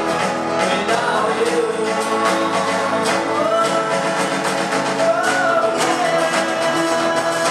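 A band playing a song: guitar and drums under a voice singing long held notes.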